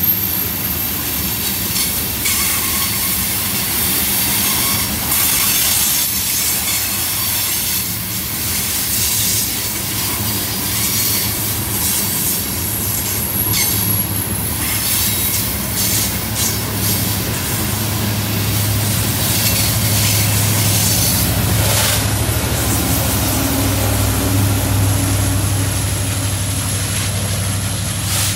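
Loaded coal hopper cars rolling past, with steel wheels clicking over rail joints and a thin, high wheel squeal. In the second half, the rear distributed-power diesel locomotive's engine adds a steady low hum as it passes.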